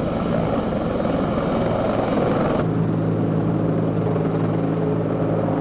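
Helicopter running steadily, a constant low drone with a high whine on top. About two and a half seconds in, the sound changes abruptly: the whine drops out and the drone continues at a slightly different pitch.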